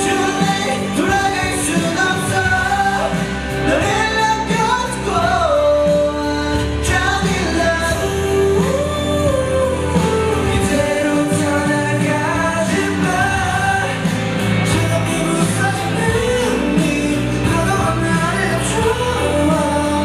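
Male vocalist singing a pop song into a microphone over a band accompaniment that includes electric bass.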